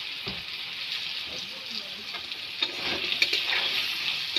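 Potato and pointed gourd pieces sizzling with spices in a kadai. A spatula stirs and scrapes them against the pan, louder from about halfway.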